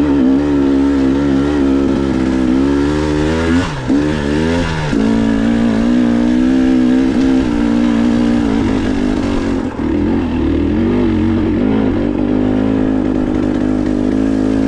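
Dirt bike engine running at steady mid revs, its pitch wavering with the throttle. About four seconds in, the revs drop briefly and then climb back.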